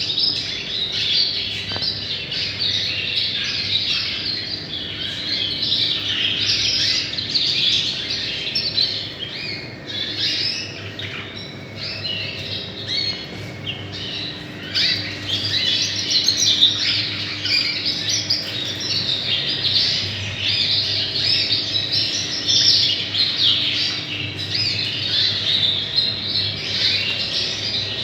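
A roomful of Yorkshire and Crest canaries chirping and singing at once, a dense continuous chatter of many birds, over a faint low hum.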